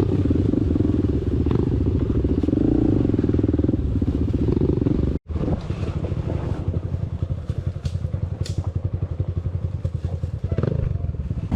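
Motorcycle engine running steadily, with a low, rapidly pulsing rumble. It cuts out for a split second about five seconds in, then carries on.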